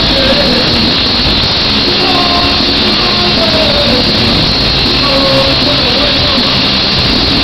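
Horror punk band playing live: a loud, unbroken wall of distorted electric guitar, bass and drums, with a wavering sung melody over it.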